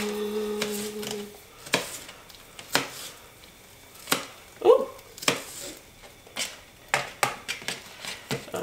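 Kitchen knife cutting an onion on a paper plate: a string of sharp, irregular knocks and taps, roughly one a second. A steady hummed note carries on into the first second and then stops.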